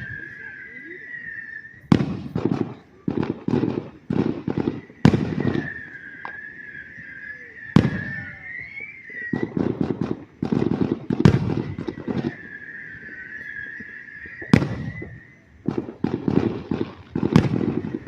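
Fireworks going off in quick succession: sharp bangs every couple of seconds with clusters of crackling in between. A wavering high whistle-like tone comes and goes several times.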